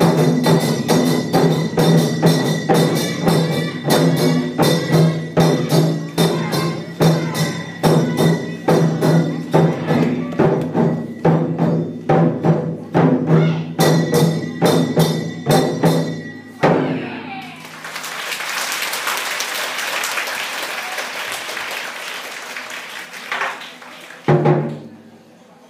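Taiko-style ensemble drumming: large drums struck in a fast, steady rhythm over a sustained backing tone, stopping abruptly about two-thirds through. An audience then applauds for several seconds, with a short burst of drum hits near the end.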